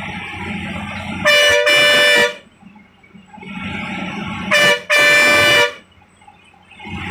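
Bus horn sounded twice on a bend of a ghat road, each time a short toot followed by a longer blast, over the low running noise of the bus.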